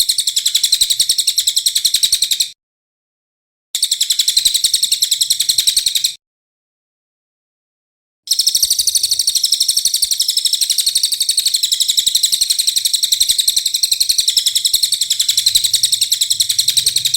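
Recorded songbird call of the 'tembakan kasar' (harsh burst) type used in masteran training tracks: a fast, unbroken run of harsh, high chips, many to the second. It comes in three stretches, cut off cleanly to dead silence at about 2.5 and 6 seconds in.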